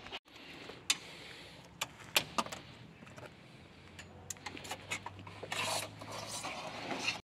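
Small hand tools clicking and scraping while dirt is picked and brushed out of a van's door sill and rear step: a string of separate sharp clicks with short scraping hisses. A low steady hum joins about halfway through.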